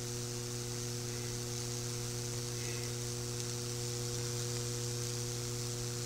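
High-voltage microwave oven transformer humming steadily while its arc burns branching fractal patterns into a wooden board, with an even hiss from the arcing.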